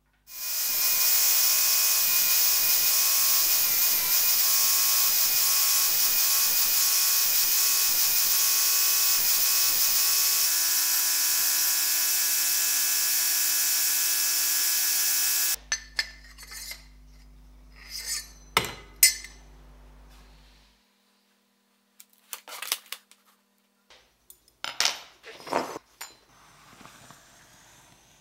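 Handheld electric sanding power tool running steadily after spinning up, a motor whine over a hiss of abrasion, its pitch shifting about ten seconds in. It cuts off suddenly about fifteen seconds in, leaving a faint low hum and scattered knocks and clicks of copper pipe being handled on a bench.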